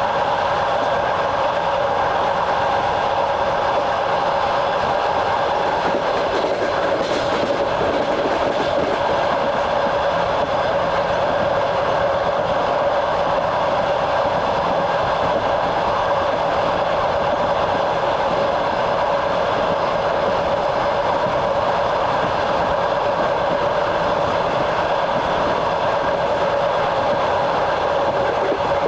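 Train carriage running steadily along the track, heard from on board: an even rolling rumble with a held hum and the wheels' clatter on the rails.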